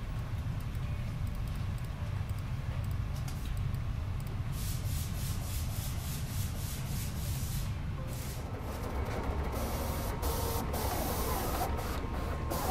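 Steady low machine hum, joined about two-thirds of the way in by a large pen plotter running as its pen head draws a pattern on paper.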